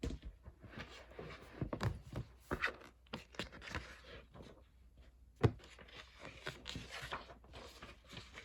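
Faint rustling and light tapping of small objects being handled, with scattered clicks and one sharper knock about five and a half seconds in.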